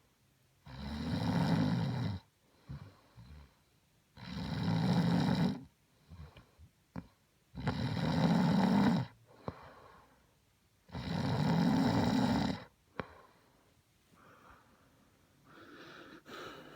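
A woman snoring in her sleep: four long snores about three and a half seconds apart, with small clicks and snuffles between them.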